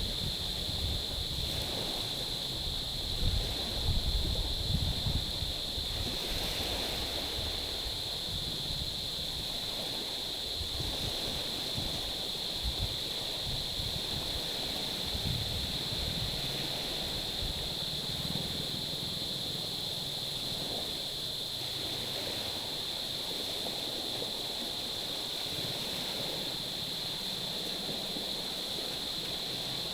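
Small waves washing against a stony shore, swelling softly every few seconds, over a steady high-pitched hiss. Wind buffets the microphone in the first few seconds.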